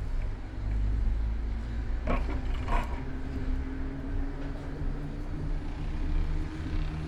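Low, steady rumble of city traffic and riding noise, picked up by a camera mounted on a moving bicycle. From about three seconds in, a motor vehicle's engine hums steadily close by. A brief voice is heard about two seconds in.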